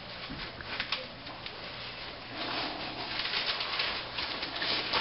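Rustling and crinkling of gift wrap and packaging as a present is pulled open, with small clicks and taps; the rustling grows denser about halfway through.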